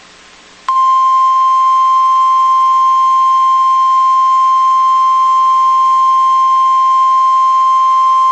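NOAA Weather Radio 1050 Hz warning alarm tone: one loud, steady, unbroken beep that starts abruptly about a second in, after a low radio hiss. It is the alert signal that precedes a severe thunderstorm warning message.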